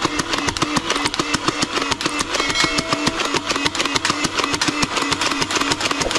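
Battery-powered multi-barrel toy dart blaster firing continuously, its motor running steadily under a rapid train of clicks as it feeds foam darts from a belt.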